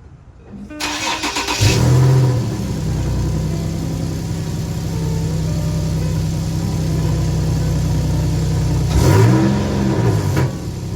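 Infiniti G37's V6 starting on freshly fitted high-flow catalytic converters: a short crank, then it catches with a rev flare about a second and a half in and settles into a steady idle. One quick blip of the throttle comes up and back down near the end. The exhaust has a minor leak from a broken Y-pipe.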